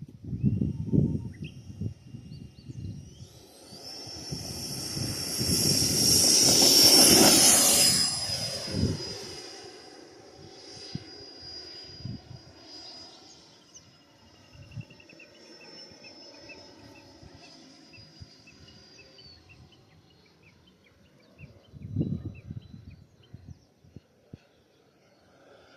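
Electric ducted fan of a Freewing 90 mm F-16 RC jet whining. The whine rises in pitch about three seconds in, swells to a loud pass around seven seconds, drops in pitch as the jet goes by, then fades away as a thin high whine. Low thumps come at the start and again near the end.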